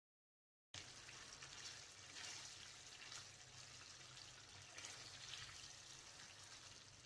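Faint sizzling and bubbling of minced meat curry in oil, with tomatoes and green chillies, as it is stirred in the pan. It starts under a second in, after a moment of dead silence.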